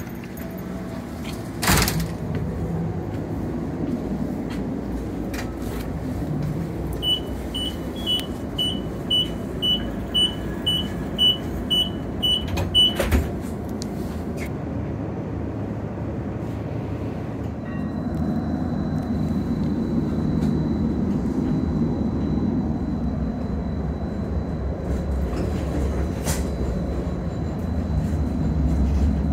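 Inekon 121 Trio streetcar's sliding door: a knock as it opens about 2 s in, then about a dozen high beeps, two a second, warning that the doors are closing, cut off by the thud of the door shutting. The car then pulls away with a thin steady high whine over a low running rumble that grows louder toward the end.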